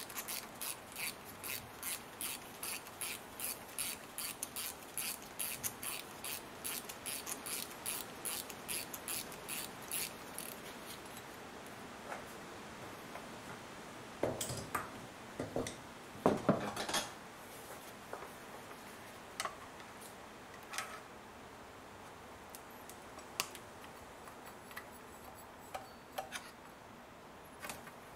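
Ratchet wrench clicking in a steady rhythm, about two to three clicks a second, as a small bolt is undone, stopping after about ten seconds. Later come a few louder metallic knocks and rattles as parts and tools are handled, then scattered single clicks.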